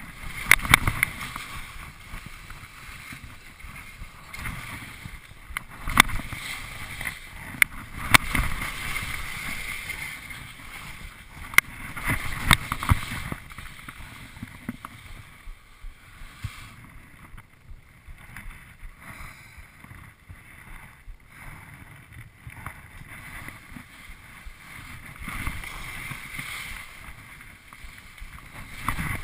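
Skis sliding and scraping over packed snow, a steady hiss broken by a few sharp clicks, the loudest about six seconds in and others around eight and twelve seconds. It goes quieter for several seconds past the middle, then picks up again near the end.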